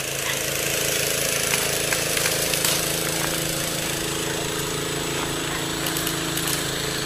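A small engine running steadily, a constant mechanical hum with a hiss over it.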